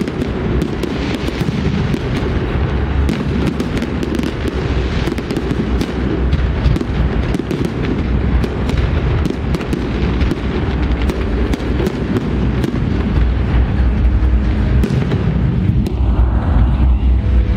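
Fireworks going off without pause: dense low booms overlapped by many sharp cracks and pops.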